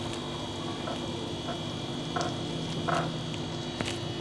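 A chicken leg being pressed and patted into a plate of flour: a few soft pats and rustles over a steady low hum.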